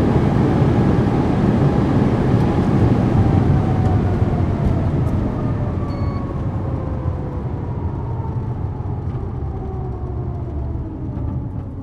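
Audi RS6 Avant Performance's twin-turbo V8 with heavy wind and road noise, coasting down from very high speed. A whine glides slowly and steadily down in pitch as the whole sound gradually fades.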